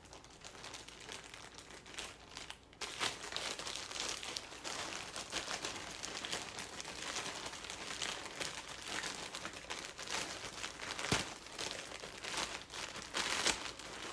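A mailer package opened by hand: packaging crinkling and rustling, with many small crackles and one sharper snap or tear about eleven seconds in.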